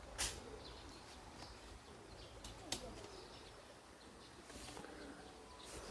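Small birds chirping faintly in short, scattered calls, with two sharp clicks, one just after the start and one near the middle.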